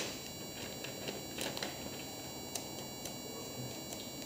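Faint rustle of a thin plastic protective wrap being pulled off a laptop, with a few light handling clicks, over steady room hiss.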